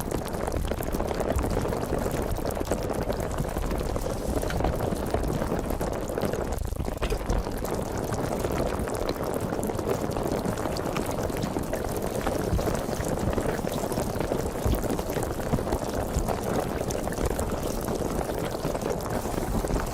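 Sparkling water fizzing: a steady, dense crackle of carbonation bubbles bursting, without a break.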